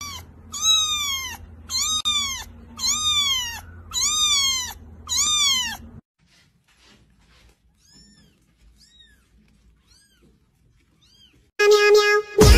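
Very young ginger kitten meowing: about five loud, high mews roughly a second apart, each rising and then falling in pitch, followed by several much fainter mews. Music with a beat comes in loudly near the end.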